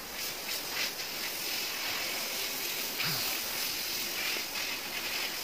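Compressed-air blow gun blowing a steady stream of air over a wet-sanded paint panel to dry it before the base coat.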